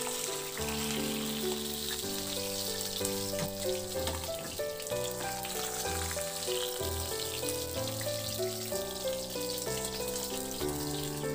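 Milkfish sizzling as it fries in hot oil in a pan, a fine steady crackle, under instrumental background music with held notes.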